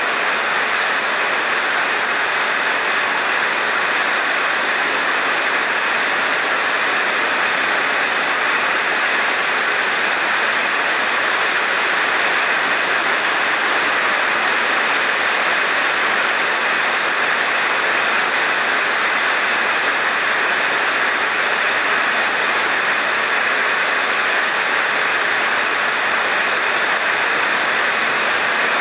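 Heavy rain falling on wet asphalt pavement: a dense, steady hiss of drops splashing into the surface water.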